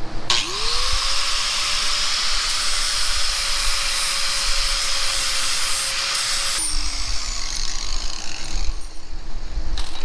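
Handheld angle grinder started up, running steadily for about six seconds on the metal being shaved down, then switched off and spinning down.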